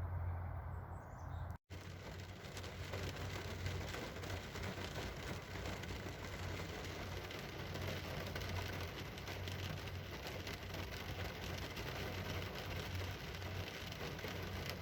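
Steady rain falling, an even hiss of drops with a low hum beneath. The sound cuts out for an instant about a second and a half in.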